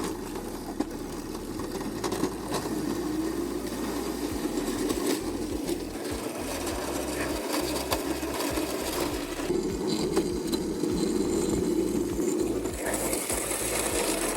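Razor Crazy Cart's electric motor and drivetrain running with a steady whine, with small rattles and knocks from the chassis. Sound-deadening insulation is fitted underneath, and the owner finds it makes little difference to the noise.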